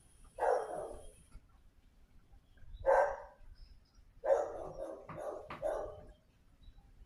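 A dog barking in separate barks, with a quick run of several barks about four seconds in.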